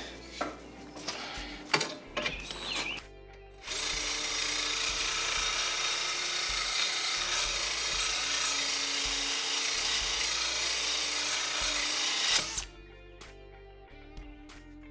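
Cordless drill spinning a drill-mounted sharpening stone against the steel edge of a lawn mower blade clamped in a vise: a steady grinding whir that starts about three and a half seconds in and stops abruptly near the end, with a few handling clicks before it.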